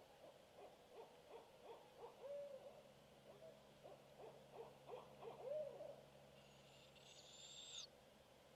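Distant barred owl giving its 'who cooks for you, who cooks for you-all' hoot, two phrases of quick rhythmic hoots, each ending in a longer note that rises and falls. A brief hissy sound follows near the end.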